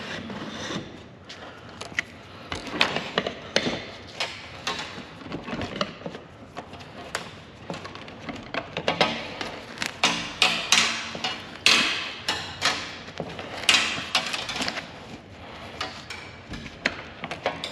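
Fish tape with an electrical wire attached being worked through a ceiling cavity: irregular knocks, clatters and scraping, busiest in the middle stretch.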